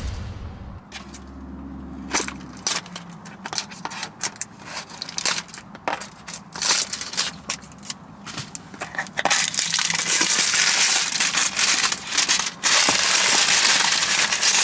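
Cardboard box and plastic packaging being opened and handled: scattered crackles and clicks, then from about nine seconds in a louder, dense run of crinkling.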